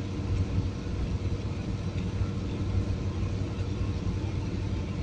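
Steady low rumble with a faint constant hum above it, the even background noise of a city outdoors.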